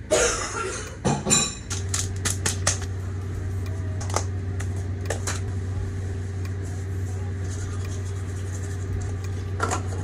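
Steady low hum of a small electric motor, which starts abruptly about two seconds in. A run of light clicks and taps follows over the next few seconds.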